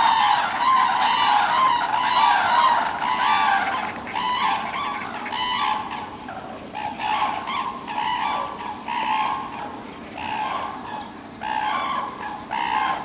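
Red-crowned cranes calling: many loud calls overlapping at first, then separate call bursts at about one a second, slowly getting quieter.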